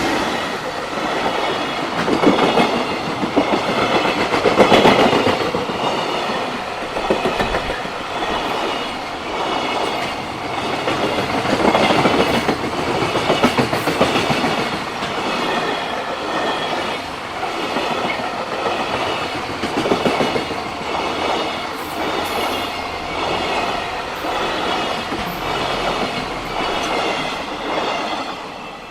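Freight train passing at speed, its wagon wheels clacking in a steady rhythm over the rail joints. The sound falls away just at the end.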